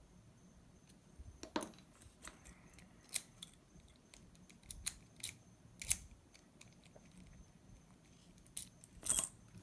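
Scattered small clicks and scrapes of a screwdriver working metal lock parts, a few sharper clicks standing out, the loudest a short cluster near the end.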